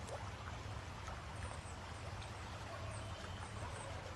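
Steady rushing of running floodwater.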